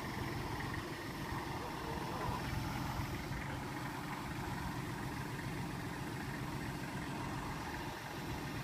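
Tractor engine running steadily under load as its loader lifts a wind-turbine tower upright.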